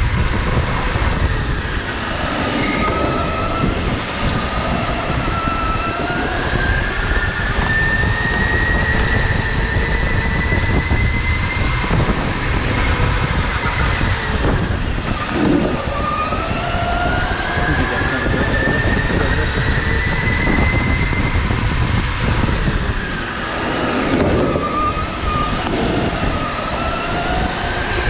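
Indoor rental go-kart driven flat out. A whine from the drive climbs slowly in pitch along the straights and drops back in the corners, twice, over a steady low rumble.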